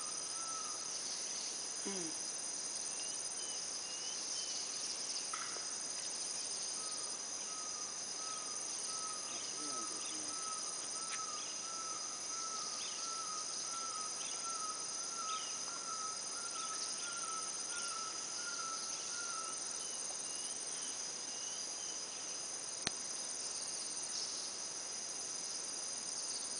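Steady high-pitched drone of a rainforest insect chorus. Over it, a bird repeats a short note about twice a second for around twelve seconds, starting about a quarter of the way in, with a few faint chirps and a single sharp click near the end.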